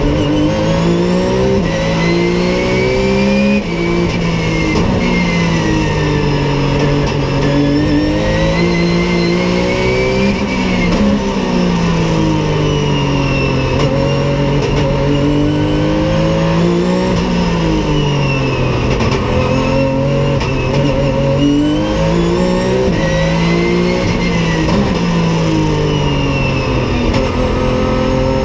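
Porsche 911 GT3 Cup race car's flat-six engine heard from inside the cabin, revving up and down as the car accelerates, brakes and changes gear around the circuit, with a sharp drop in pitch about three and a half seconds in.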